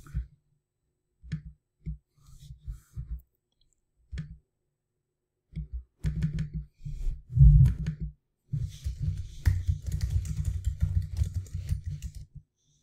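Typing on a computer keyboard. A few scattered key taps and clicks come first, then after a short pause a stretch of quick, steady typing.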